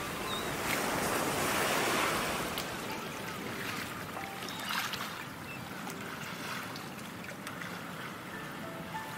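Sea waves breaking and washing up a pebbly beach: a steady surf noise that swells about one to two seconds in, then settles.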